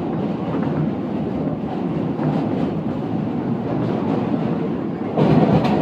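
Q-line subway train crossing the Manhattan Bridge, heard from inside the car: a steady rumble and rattle of wheels on track, with a louder surge about five seconds in.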